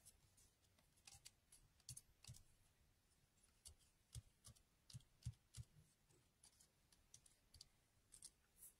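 Near silence with faint, irregular light taps and clicks of paper strips being handled and set down on a craft sheet.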